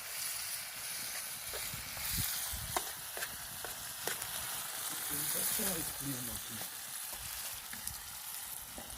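Food sizzling in hot oil, a steady hiss, with a few sharp clicks of a utensil.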